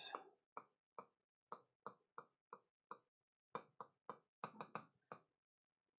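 Faint, irregular taps and clicks of handwriting on an interactive whiteboard's touchscreen, about fifteen in all and coming closer together near the end.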